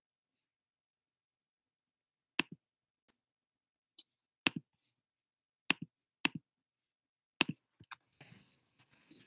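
About six sharp clicks at irregular intervals, several of them doubled with a softer knock just after, from someone working a computer's controls (mouse, trackpad or keys). Faint rustling near the end.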